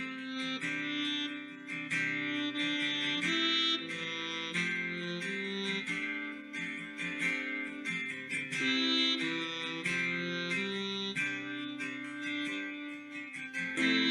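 Instrumental guitar music without singing, plucked notes and chords moving steadily: the introduction to a worship song before the vocals come in.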